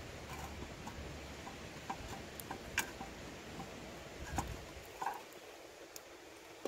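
Scattered light clicks and ticks while a chapati is turned and lifted out of a metal frying pan over a small wood fire: a fork tapping and scraping the pan, with the crackle of the fire. The sharpest click comes about three seconds in.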